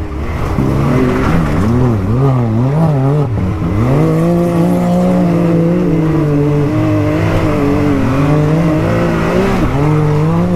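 Can-Am Maverick X3's three-cylinder engine, heard from inside the cab while driving. For the first few seconds the revs rise and fall quickly with the throttle, then they climb and hold fairly steady at speed, dipping briefly a couple of times.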